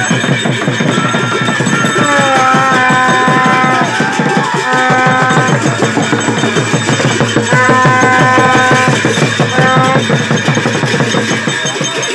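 Newar procession music: drums and clashing hand cymbals keep up a fast, steady beat, joined twice by a melody of held notes.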